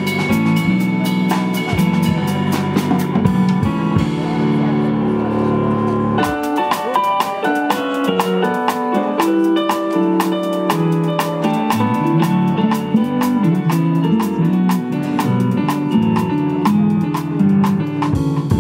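Live instrumental band of keyboard synthesizer, electric bass guitar and drum kit playing together. The drums drop back for about two seconds, around four seconds in, then resume with frequent sharp hits under the keyboard chords.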